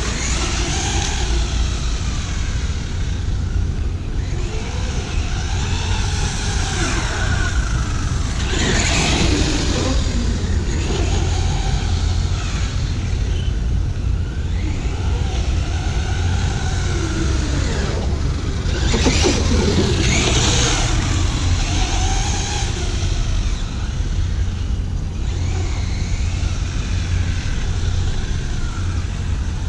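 Electric RC monster truck's motor and drivetrain whining, rising and falling in pitch as it speeds up and slows down around the deck. Under it runs a steady low rumble.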